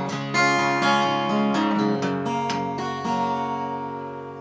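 Acoustic guitar strumming the closing chords of a song, the last chord ringing out and fading away.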